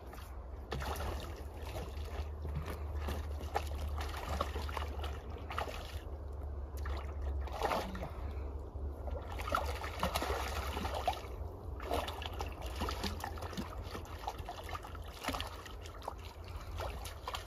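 Shallow pond water splashing and sloshing as a hooked fish struggles at the surface on the end of the line, in many small irregular splashes over a steady low rumble.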